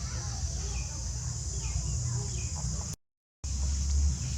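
Outdoor ambience of a steady high insect drone with scattered faint bird chirps over a low steady hum, broken by a sudden half-second gap of total silence about three seconds in.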